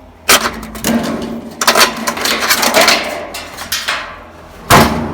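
Clicks, knocks and rattling of plastic and sheet metal as a washing machine's lid switch is pushed free of its side clips, with a loud knock near the end.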